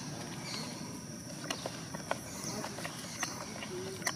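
Outdoor ambience: a steady high insect drone with short, falling bird-like chirps and a few sharp clicks scattered through it.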